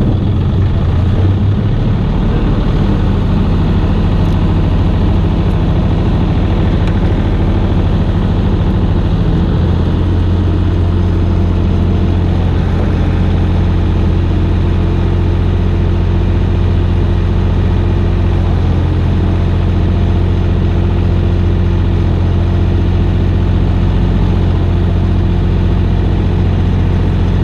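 An engine running at a steady speed, a loud even low hum with no change in pitch; it grows a little steadier and fuller about nine seconds in.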